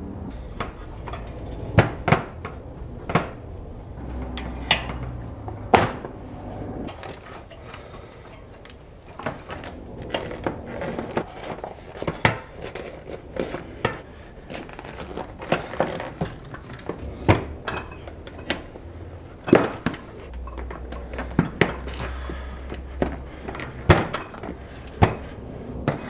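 A 20 x 2.40 bicycle tyre being worked onto a spoked wheel's rim by hand: irregular sharp clicks and knocks as the tyre and wheel are handled and the bead is pushed over the rim edge, over low rubbing and rustling.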